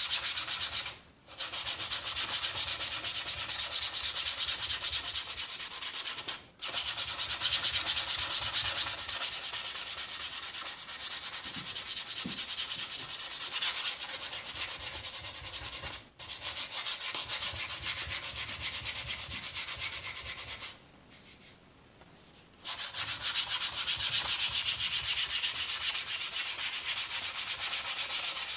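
100-grit sandpaper rubbed by hand over a wooden shotgun stock in quick back-and-forth strokes, a steady scratchy hiss. It stops briefly three times and pauses for about two seconds roughly three-quarters of the way through.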